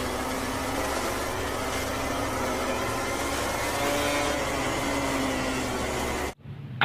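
Racing motorcycle engine sound effect, running at high revs with its pitch rising and falling; it cuts off suddenly near the end.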